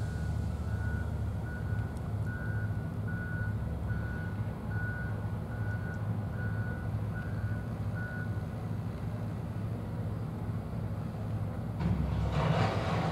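A vehicle's reversing alarm beeping at an even pace, a little over once a second, over a steady low engine rumble. The beeping stops about eight seconds in, and near the end a louder rush of hissing noise sets in suddenly.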